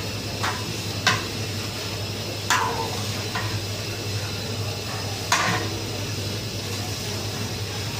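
Long-handled metal spatula stirring tomato paste frying in desi ghee in a large aluminium pot, with a few sharp clanks of metal on the pot's side or bottom, the loudest about a second, two and a half and five seconds in, over a steady hiss.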